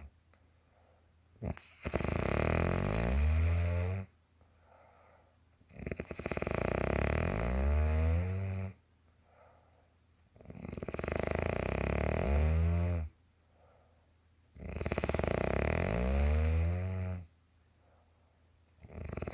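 A sleeping woman snoring: four long, deep, rattling snores, each about two and a half seconds, coming about every four seconds with quiet breaths between them. The next snore starts right at the end.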